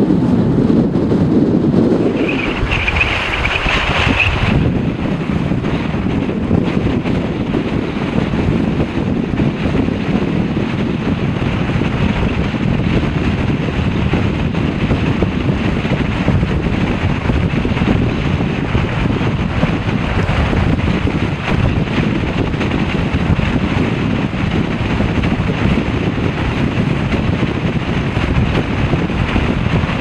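Strong blizzard wind, gusting to around 90 km/h, buffeting the microphone in a loud, steady rumble. A higher hiss stands out for about two seconds near the start.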